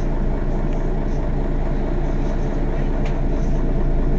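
Mercedes-Benz Citaro city bus engine idling steadily, a constant low hum.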